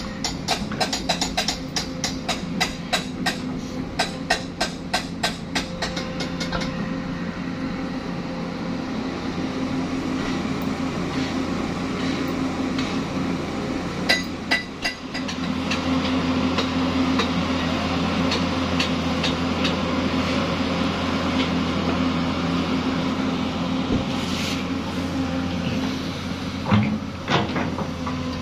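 Hyundai 220 excavator's diesel engine running while it digs and loads soil, and it works harder from about halfway through. A fast, even clicking runs through the first six seconds. A few knocks come around fourteen seconds and near the end.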